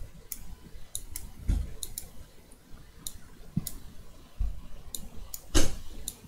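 Computer mouse clicking in short, irregular runs of sharp clicks, with a couple of soft low thumps and one louder knock near the end.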